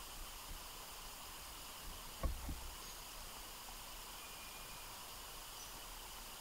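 Faint, steady forest ambience hiss, with one low thump a little over two seconds in and a faint, brief, thin whistle a little after the middle.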